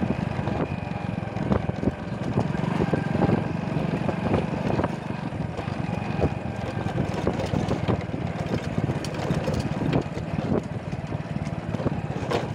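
Small motorcycle engine running while the bike rides a rutted, stony dirt track, with scattered knocks and rattles as it goes over the bumps.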